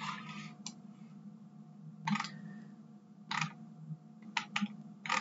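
Computer mouse clicks, about six of them scattered a second or so apart, over a low steady hum.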